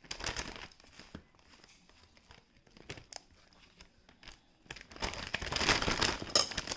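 Plastic zip-top bag crinkling as short ribs are put into it. There is a short burst right at the start, light scattered rustles, then a longer, louder stretch of crinkling near the end.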